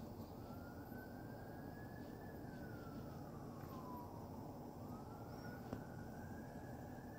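A distant emergency-vehicle siren in a slow wail, faint: rising for about two seconds, falling for about two, then rising again near the end, over a steady low rumble.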